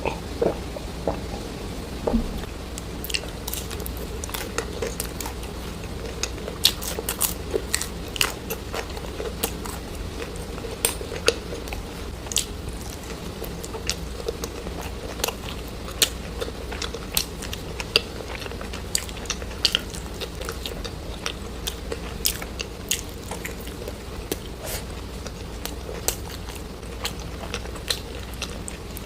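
Close-miked ASMR chewing and biting of crunchy food: irregular sharp crunches.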